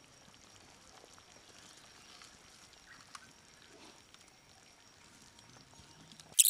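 Near silence: a faint steady hiss with a few soft ticks, then a sudden loud burst right at the end.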